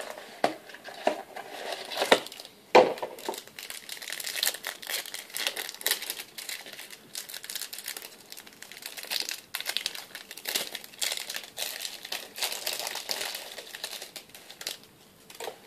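Wrapper of a trading-card pack being worked open by hand: a few sharp crackles and tearing snaps, then continuous crinkling and crumpling.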